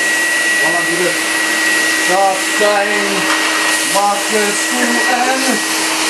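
Canister vacuum cleaner running steadily, its motor giving a constant high whine over a rushing of air.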